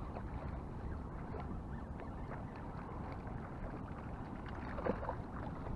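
Steady wind on the microphone and water moving around a kayak, with a short splash about five seconds in from a hooked speckled trout thrashing at the surface.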